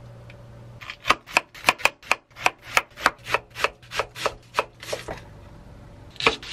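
Kitchen knife slicing red cabbage on a wooden cutting board: a quick, even run of cuts, about three to four a second, for about four seconds, then a couple more near the end.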